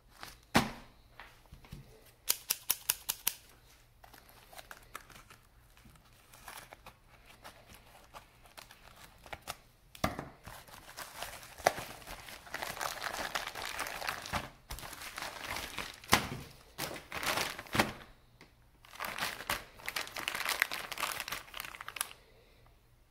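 Plastic packaging crinkling and rustling in irregular bursts as a replacement rear wiper blade is unwrapped from bubble wrap and a clear plastic bag, with a quick run of sharp clicks about two seconds in.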